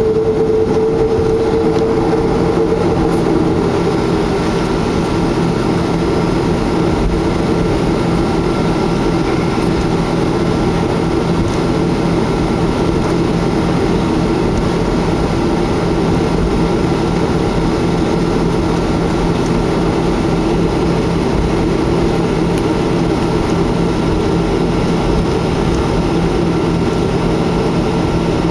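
Cabin noise of a Boeing 737-300's CFM56 jet engines heard from inside the cabin: a loud, steady drone with a low hum and a few steady tones, one of which fades out in the first few seconds.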